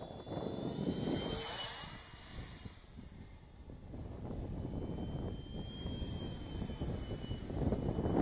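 Whistle-modified 70 mm electric ducted fan of an RC Eurofighter jet in flight: a rushing fan sound with a high whistle on top. The whistle rises in pitch about a second in and again about five seconds in, and the sound swells as the jet comes nearer.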